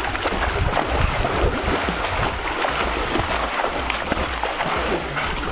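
Steady splashing and churning of pool water from a man and a black Labrador swimming fast side by side, with a girl swimming behind them.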